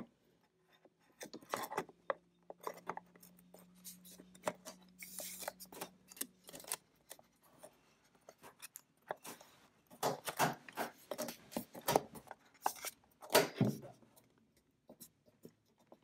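iMac's memory compartment door being fitted back into the aluminium housing: a run of light clicks, taps and scraping rubs as it is slid in and pressed into place.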